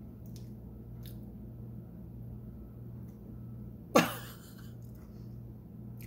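A short, loud vocal exclamation, a woman's high 'ooh' falling steeply in pitch, about four seconds in. Before it there are a few faint clicks, and a steady low hum runs underneath.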